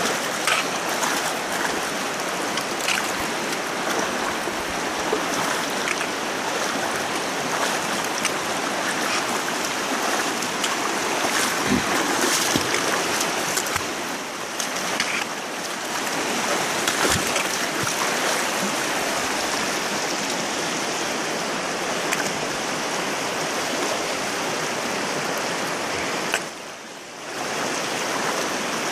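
The North Fork of the Virgin River rushing and splashing over rocks, a steady wash of water noise that dips briefly near the end.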